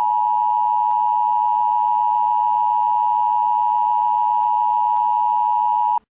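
Emergency Alert System attention signal: a loud, steady two-tone beep that holds without a break, then cuts off abruptly near the end. It signals that an emergency message is about to follow.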